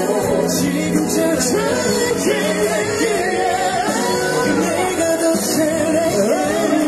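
A male pop vocalist sings live into a microphone over the song's musical accompaniment. The melody lines are sustained and bending in pitch.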